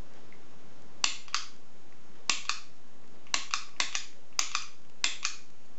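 Southord snap gun firing its pick into a YALE pin-tumbler cylinder lock: a series of sharp metallic snaps, mostly in quick pairs, about five pairs, as the trigger is pulled and released to knock the pins up while tension is held on the wrench.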